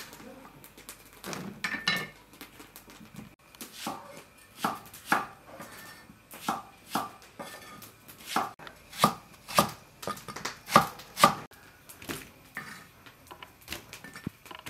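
Cleaver chopping peeled onions on a wooden chopping board: irregular sharp knife strikes into the wood, about one or two a second, loudest in a quick run about two thirds of the way through.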